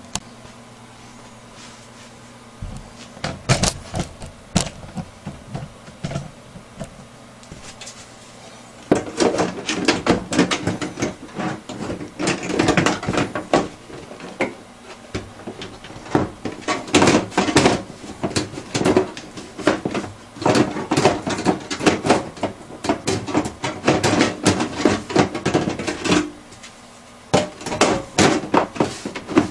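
Hard plastic and metal computer parts being handled: a few sharp knocks and clicks, then from about nine seconds in a near-continuous clatter of clicks, knocks and rattles, with a short pause near the end.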